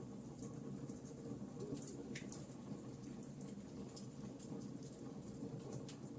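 Wood fire crackling in a fireplace: scattered small pops and snaps over a steady low rush of burning logs, one pop about two seconds in trailing off with a brief falling hiss.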